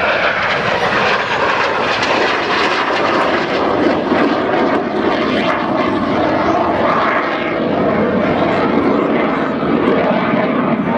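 Single piston-engined aerobatic aircraft flying a display under power, its engine and propeller noise steady and loud throughout.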